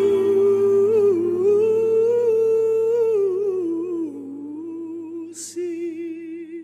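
A man's voice holds a long wordless closing note of a ballad, wavering in pitch, over a faint sustained backing chord. The note rises slightly, then drops and grows fainter after about four seconds, with a short breath about five seconds in.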